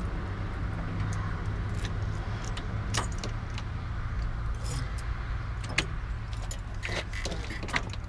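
Ignition key being turned in an old RV with a dead battery: the key ring jingles and there are several sharp clicks, but the engine does not crank. A steady low hum runs underneath.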